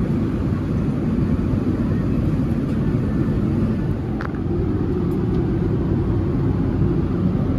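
Airliner cabin noise in flight: a steady low rumble. One light clink about four seconds in.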